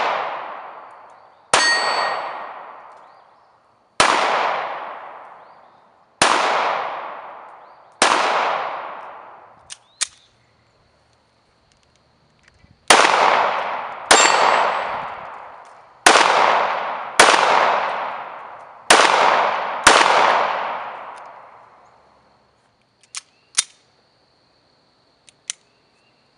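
Ten pistol shots from a Radom P-64 firing 9×18 mm Makarov: four about two seconds apart, a pause of several seconds, then six in quicker succession. Each shot rings out and fades over about two seconds.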